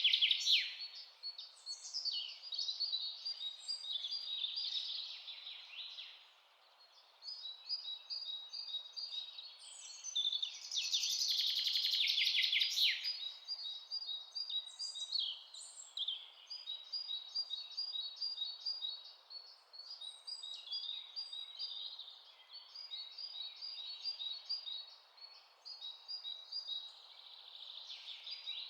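Several songbirds chirping and trilling in a forest, with rapid runs of short high repeated notes and a louder flurry of calls about eleven seconds in, over a faint steady hiss.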